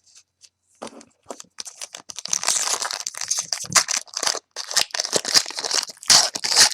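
Foil wrapper of a trading card pack crinkling and tearing as it is opened by hand, a dense crackly rustle that starts about a second and a half in.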